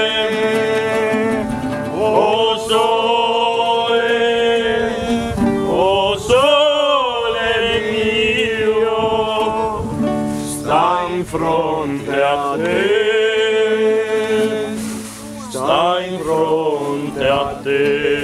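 A man singing to a classical guitar, holding long notes that waver in pitch, with short breaks between phrases.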